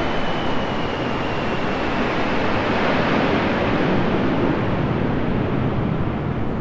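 Loud rushing roar of an aircraft passing overhead. It swells to its loudest about halfway through and then eases off.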